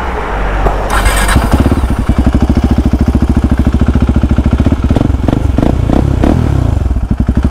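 KTM RC 390's 373cc single-cylinder engine running through a Yoshimura full-system exhaust, settling into an evenly pulsing idle about a second and a half in. A few quick throttle blips come between about five and six and a half seconds in.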